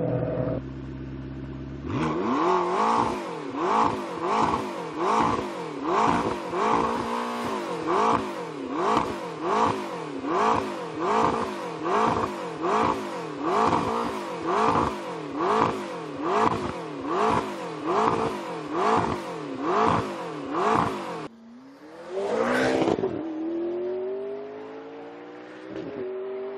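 Supercar engine idling briefly, then revved in a long series of quick blips, about one a second, some twenty in all. After a last rev the engine note climbs steadily near the end, as under acceleration.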